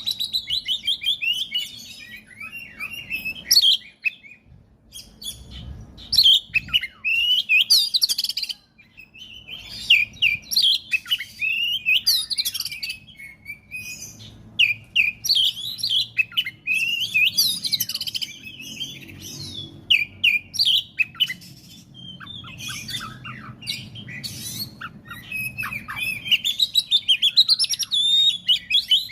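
Oriental magpie-robin (kacer) singing a loud, fast, varied song of whistles and chatter, in bursts separated by brief pauses.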